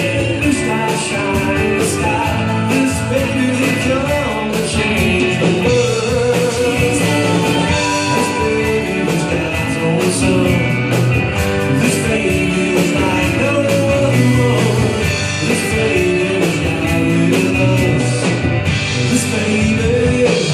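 Upbeat live band music with a steady beat, played throughout.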